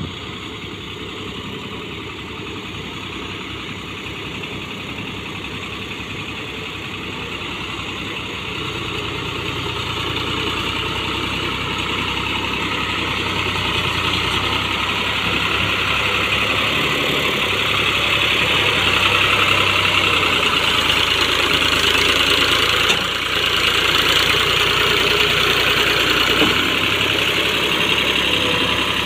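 Al-Ghazi farm tractor's diesel engine running steadily under load as it hauls a trolley heaped with sugarcane, growing steadily louder as it draws near.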